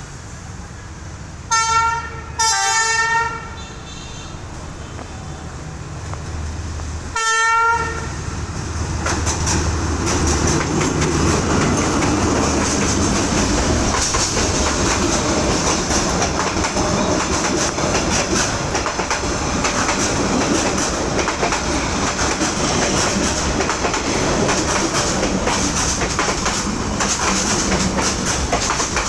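D19E diesel-electric locomotive sounding its horn three times: a short blast, a longer one, and another about five seconds later. Then the engine rumbles up, and the passenger train passes with a steady rush and clatter of wheels on the rails.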